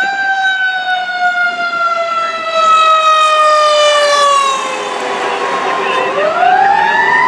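Fire engine siren sounding as the engine passes close and drives away, its pitch falling slowly for about five seconds, then rising again about six seconds in.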